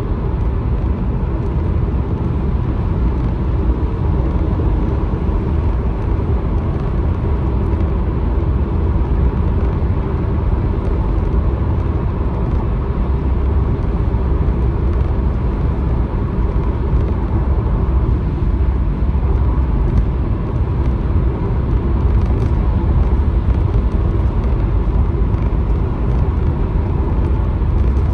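Steady low road rumble and engine noise heard from inside a car's cabin while driving on a highway.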